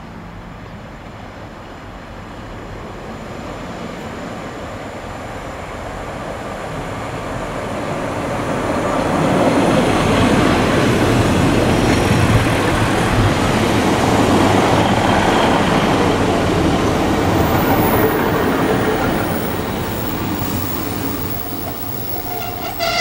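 Diesel multiple unit passenger train approaching, passing close by and running away: the engine and rail noise build up over several seconds, are loudest as the carriages go past, then fade.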